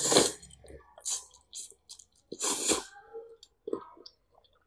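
Close-miked slurping of spaghetti noodles in minced-beef sauce: two loud hissing slurps, at the start and about halfway, with wet chewing and lip smacks between.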